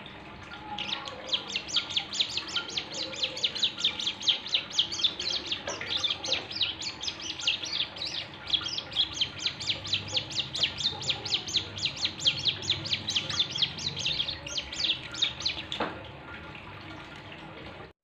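A prinia (ciblek gunung) singing a long fast trill of sharp, evenly repeated chirping notes, several a second, which stops a couple of seconds before the end.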